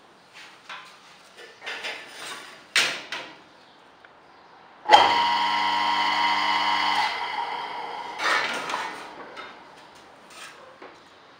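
Restored electric motor switched on about five seconds in: it starts at once and runs with a steady hum for about two seconds, then is cut off and spins down. A few light knocks and clicks come before it starts.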